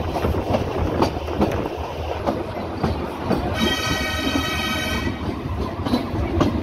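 Small tourist train running along its track, a steady rumble of the carriages with rattling clicks of wheels on the rails. Midway a high, reedy horn sounds once for about a second and a half.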